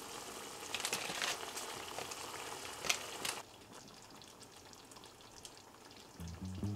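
Sliced beef and onions cooking in red wine and water in a pot, a sizzling hiss with scattered small pops. About three seconds in it cuts off sharply to a much fainter hiss.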